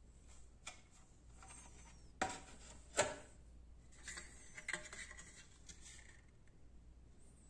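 Hard 3D-printed plastic parts being handled: two sharp knocks about a second apart, then light clicking and rubbing of plastic in the hand.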